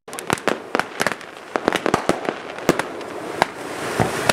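Aerial fireworks going off: a quick, irregular run of sharp bangs and crackles.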